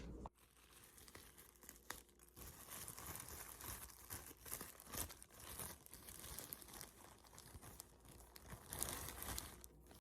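Faint, irregular crinkling of plastic food packaging being handled, with a few small clicks.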